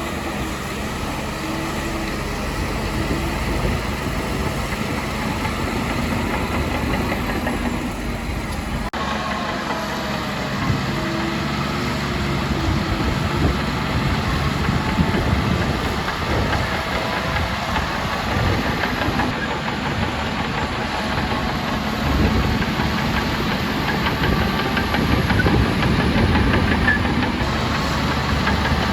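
Diesel engines of heavy earthmoving machinery running steadily, with no let-up. The sound changes abruptly about nine seconds in.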